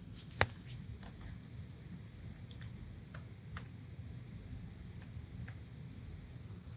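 Computer keyboard being typed on slowly: a handful of separate keystrokes spaced irregularly, the first and loudest about half a second in, over a faint low room hum.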